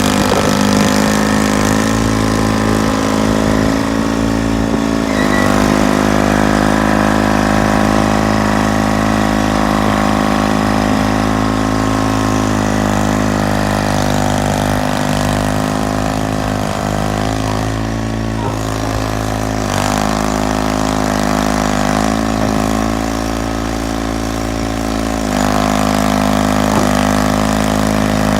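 The John Deere 440 industrial crawler tractor's General Motors diesel engine runs steadily, its engine speed shifting slightly a few times.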